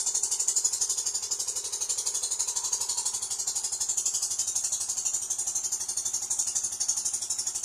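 A steady, rapidly pulsing high-pitched rattling buzz, with a faint low hum beneath it.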